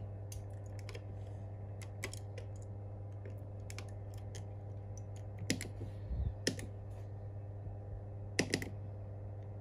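Scattered small plastic clicks and taps as an iPhone display's flex cable is pressed onto a screen tester's connector and the display is set down, ending with a sharp double click as a tester button is pressed. A steady low hum runs underneath.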